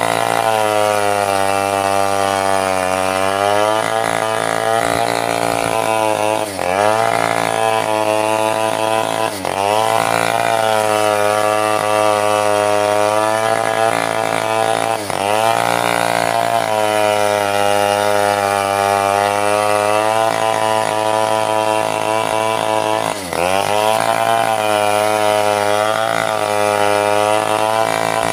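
Stihl two-stroke chainsaw running at high revs as it cuts through a mahogany log. Its pitch sags under load and briefly dips and recovers several times.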